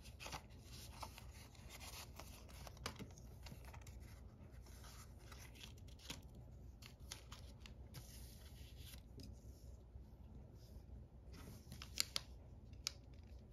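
Folded origami paper handled and laid down on a wooden tabletop: faint rustling and light taps, with two sharper clicks near the end.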